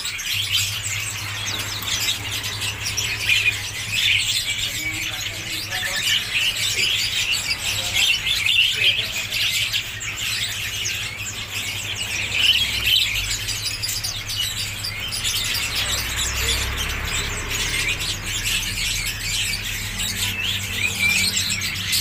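Many caged songbirds chirping and twittering at once, a dense, continuous chorus of short high calls, over a low steady hum.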